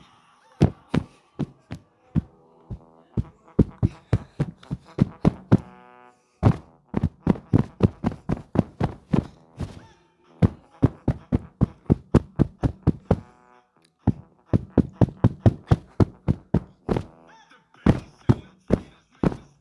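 A rapid series of hard knocks on a musical toy, about three to four a second in bursts with short pauses, and brief electronic tones sounding under the knocks at times.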